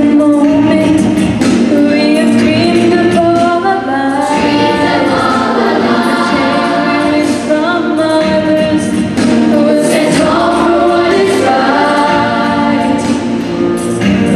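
A woman singing a melody with long held notes into a handheld microphone, amplified over a hall's sound system, with a choir singing behind her.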